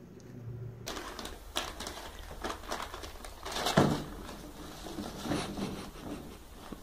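A cat with its head stuck in a bag scrabbling over plastic containers: irregular rustling of the bag and knocks and scrapes against the containers, loudest a little under four seconds in.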